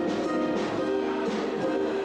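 A live band playing, with held chords and a steady beat of high, short strokes.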